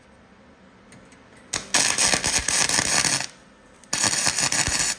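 MIG welder laying short bursts of weld on car body sheet metal, with a fast steady crackle. One burst starts about a second and a half in and lasts just under two seconds; a second starts about four seconds in and is still going at the end.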